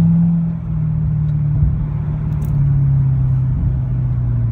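2011 Corvette Grand Sport's 6.2-litre V8 running while driving, its note slowly falling as the engine speed drops. The car is in its fault state, shifting badly and not upshifting past second gear.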